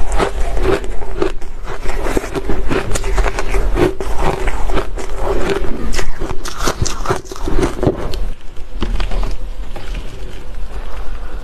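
Close-miked crunching and chewing of a mouthful of shaved ice, a dense run of crackly crunches. The crunching thins out and grows sparser about eight seconds in.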